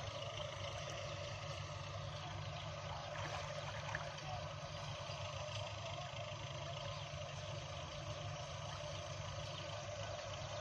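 Steady drone of an engine running at a constant pace, with one brief tap about four seconds in.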